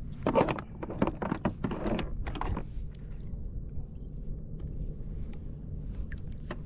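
Handling noise on a fishing kayak: a quick run of short knocks and splashes in the first couple of seconds, over a steady low rumble.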